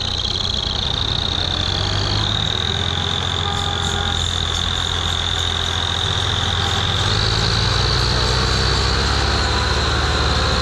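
Diesel tractor engine pulling a trolley heavily loaded with sugarcane, running steadily under load and getting a little louder as it comes close. A steady high whistling tone runs over it.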